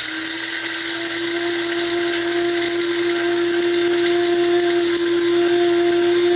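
The built-in coffee mill of an Aimami 3-in-1 coffee maker grinding coffee: a loud, steady motor whine over a hiss.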